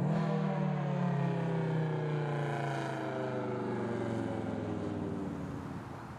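Federal Signal SD-10 outdoor warning siren sounding the Alert signal. It winds up quickly at the start, then holds one steady tone that sinks slightly in pitch and fades a little near the end.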